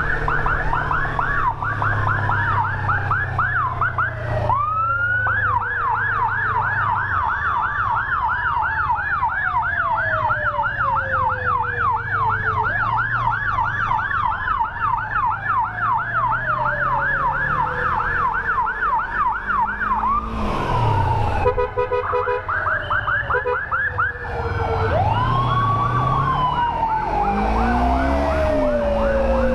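Emergency sirens of an ambulance escort convoy: a fast yelp rising and falling several times a second, overlaid by a slower wail that climbs and then glides down about every six seconds. The yelp breaks off briefly about twenty seconds in, then resumes. A motorcycle engine runs underneath.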